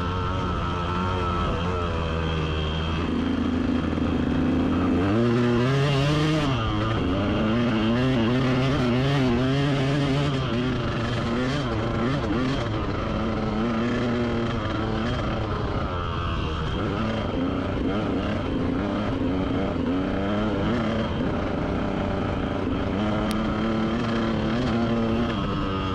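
Dirt bike engine heard from the rider's on-board camera, revving up and down over and over as the bike accelerates and eases off along the motocross track.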